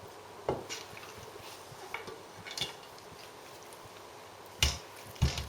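A serving utensil knocks and scrapes against a baking dish several times as cooked pasta is spooned in as a layer. The loudest knocks come near the end.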